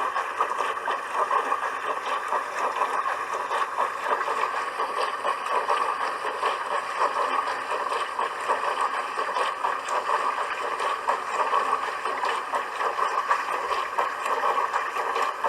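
Household dishwasher running through its wash: a steady rush of water churning and spraying inside the tub, with a fast, uneven flutter.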